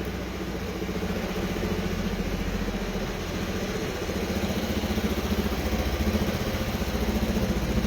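Rebuilt Honda Forza scooter's single-cylinder engine idling steadily, with an even, fast pulse, just back to life after its rebuild. It gets slightly louder about halfway through.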